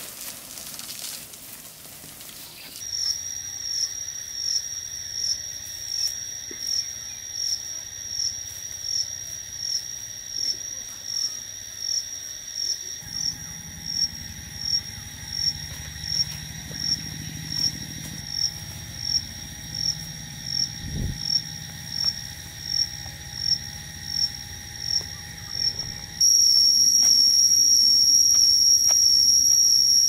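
Insects calling in the rainforest: a steady, high shrill tone that pulses a little faster than once a second. Near the end a much louder, continuous shrill drone starts abruptly.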